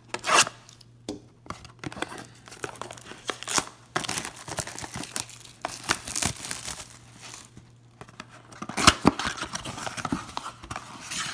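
Plastic wrapping and foil card packs crinkling and tearing as a Panini Status basketball-card blaster box is unwrapped and opened by hand. There are irregular rustles, with sharper rips just after the start and again about nine seconds in.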